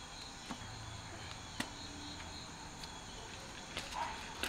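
Clay pot being lifted out of smouldering embers and ash: a few scattered sharp clicks and knocks over a quiet background.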